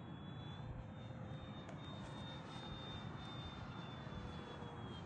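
Electric motor and propeller of a radio-controlled FMS P-47 Razorback warbird in flight, a thin, steady high whine that dips slightly in pitch near the end.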